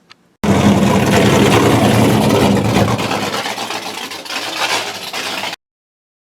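A loud engine running steadily, which starts abruptly and cuts off suddenly about five seconds later.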